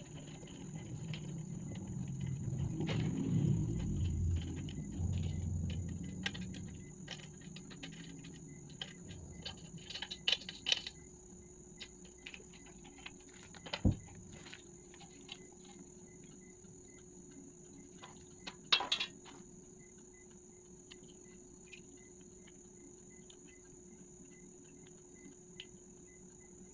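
Handling noise from assembling a floor mirror's tubular stand frame: low rumbling and rustling for the first several seconds, then scattered light clicks and one sharp knock about halfway through. A faint steady chirping of crickets or insects runs underneath.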